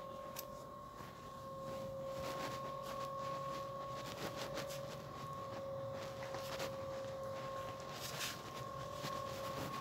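Quiet shop room tone: a steady high electrical hum held at two pitches, with faint scattered rustles and light knocks.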